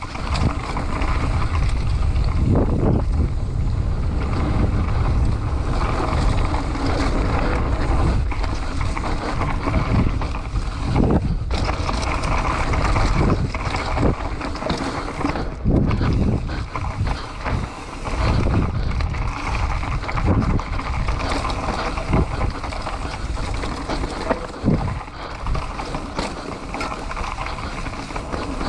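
Mountain bike being ridden down a dirt trail: wind rushing over the microphone, a steady low rumble, and frequent short knocks and rattles from the bike over rough ground.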